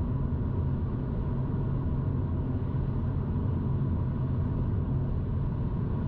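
Steady road and wind noise inside the cabin of a Mini Cooper SE electric car cruising at 110 km/h on Hankook Ventus S1 evo3 205/45R17 tyres, a low, even rumble with no engine sound. It measures around 67 dB in the cabin.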